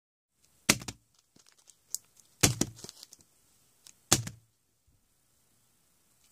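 Three foil trading-card packs set down one after another onto a mat, each landing with a sharp slap and a short crinkle of the foil wrapper, the three about a second and a half apart.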